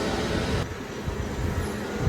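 Haas ST-30Y CNC lathe running with a steady mechanical hum and a faint tone. About half a second in, its higher hiss cuts off and a lower, quieter hum carries on.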